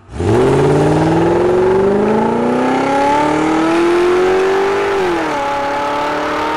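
Car engine accelerating, its pitch rising steadily for about five seconds, then dropping as it changes up a gear and running on at a steady pitch.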